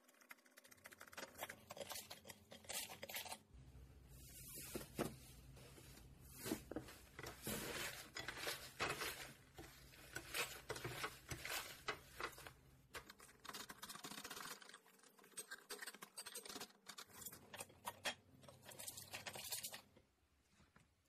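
Translucent blue glitter slime pressed flat and peeled off by fingers, giving an irregular run of quick sticky crackles and small pops.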